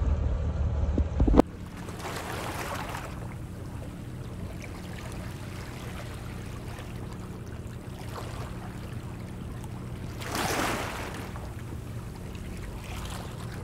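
Wind rumbling on the microphone under sail, cut off abruptly a second or so in; then calm harbor water lapping softly, with a steady low hum and two louder swashes of water.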